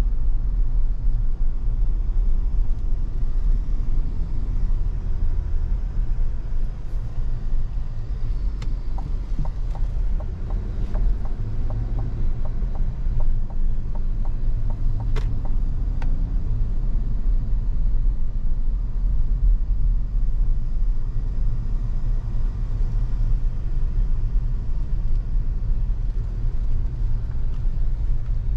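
2023 Chevrolet Tahoe Premier with its 5.3 L V8 being driven: a steady low rumble of engine and road noise, with a few faint clicks near the middle.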